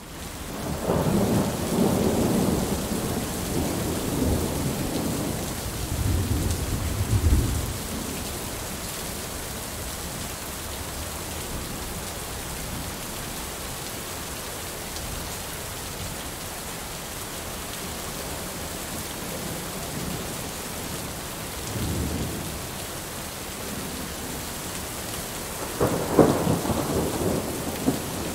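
Heavy rain falling steadily in a thunderstorm, with a long rolling rumble of thunder over the first several seconds, a faint rumble about two-thirds of the way through, and a sharper, louder clap of thunder rolling on near the end.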